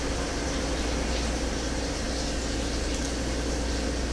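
Steady low electrical hum with a faint hiss of background noise. No distinct clicks or snips stand out.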